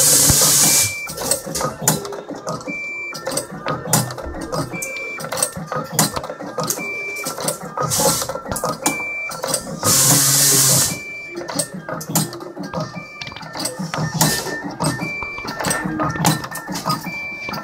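Automatic cable stripping and cutting machine running, its rubber feed rollers drawing wire through the blades, with many rapid clicks, a short high beep about every two seconds and two longer bursts of hiss, at the start and about ten seconds in. A song plays in the background.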